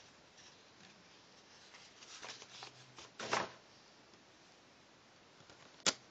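Paper rustling as a printed booklet's pages are handled, with a louder brushing knock of the paper about three seconds in. A single sharp click near the end.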